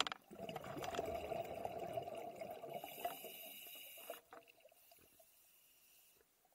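Scuba diver's exhaled air bubbling from the regulator, heard underwater: a dense gurgling burble that stops about four seconds in, leaving only a faint hiss.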